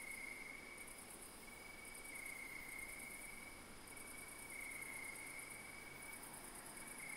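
Night insects chirring: crickets keep up a steady high trill, while a higher, faster pulsing chorus of insects cuts in and out every second or so.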